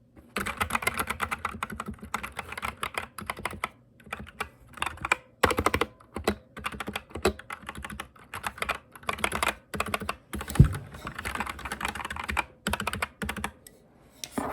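Dierya DK61 mechanical keyboard with Gateron Black switches being typed on fast: a continuous clatter of keystrokes with a few brief pauses and one louder strike about ten seconds in.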